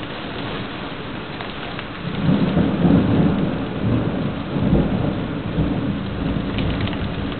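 Very heavy rain pouring down steadily, with a low rumble of thunder building about two seconds in and rolling on in swells.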